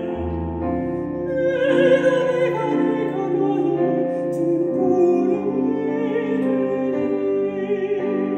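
A man singing a slow song solo in an operatic style over live keyboards and band, with vibrato on the held notes.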